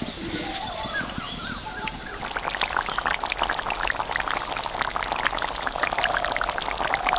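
Jackfruit and potato curry simmering in an open pan over a wood fire, a dense crackle of bubbles popping. It is quieter for the first two seconds, then the bubbling rises and keeps going.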